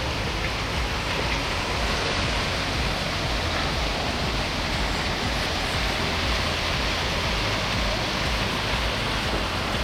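Steady rush of a waterfall over 30 metres high pouring into its plunge pool.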